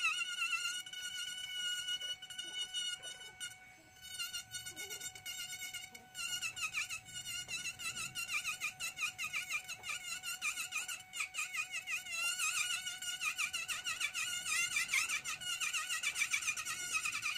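High-speed handheld rotary carving pen whining as its bit cuts into ngọc am wood, the pitch wavering as the load on the bit changes. The whine drops away about four seconds in and comes back about six seconds in, wobbling more as the cutting goes on.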